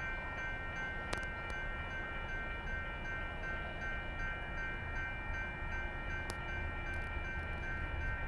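A distant locomotive horn holding a steady multi-note chord over a low rumble, with two faint clicks.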